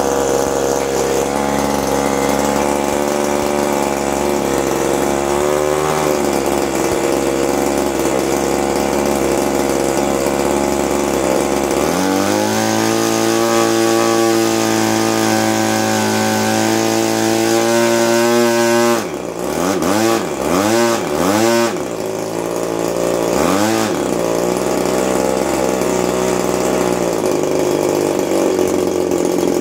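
RCGF Stinger 20cc twin-cylinder boxer two-stroke engine running on a test stand, swinging a 16x8 propeller on its first run, its carburettor needles still at factory settings. It runs steadily at low speed, is throttled up about twelve seconds in and held, then blipped down and up several times before settling back to a lower speed near the end.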